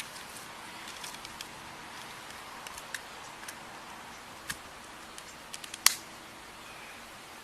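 Handling noise: scattered light clicks and taps, with one sharper click about six seconds in, over a steady hiss.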